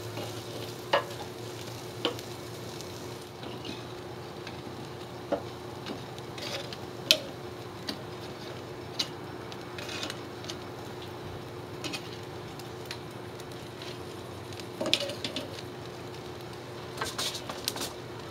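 Buttered ciabatta rolls sizzling softly on a hot charcoal grill's cast iron grate, with sharp clicks and taps of metal tongs as the rolls are picked up and flipped, several quick clicks together about 15 s in and again near the end.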